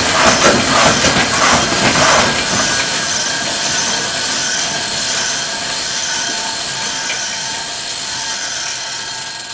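Human-powered kinetic sculpture of salvaged bicycle wheels and hubcaps driven by a belt of plastic grocery bags, running with a rattling clatter and a whirring, faintly squealing rush. The clatter fades after about two seconds and the sound grows gradually quieter.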